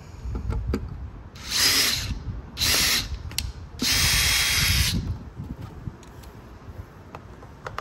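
Cordless drill boring the last bolt hole through the truck's dash storage tray in three short runs, the last about a second long, with low handling bumps and rumble between and after.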